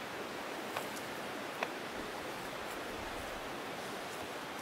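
Steady, even hiss of outdoor background noise, with two faint clicks about a second apart.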